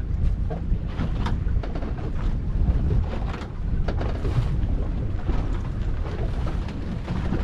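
Wind buffeting the microphone in a steady, fluttering low rumble, with sea water moving around a small boat.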